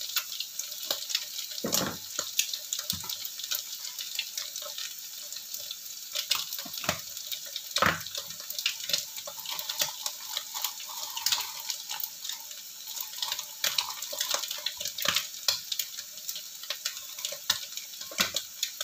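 Oil sizzling in a wok around frying scrambled egg, mushrooms and dried shrimp: a steady hiss with scattered sharp crackles and pops.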